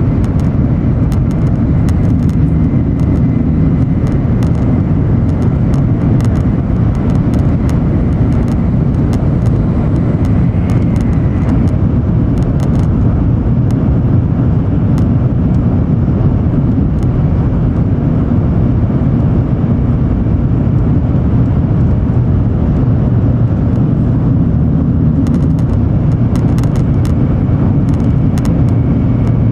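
Cabin noise of an N700 series Shinkansen running at speed: a steady, loud low rumble and rush from the car body, wheels on rail and passing air. Faint light clicks come now and then.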